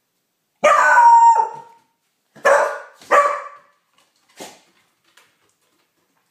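Beagle puppy barking at the window: first a drawn-out howling bark of about a second that falls in pitch at the end, then two short sharp barks and a fainter one after them.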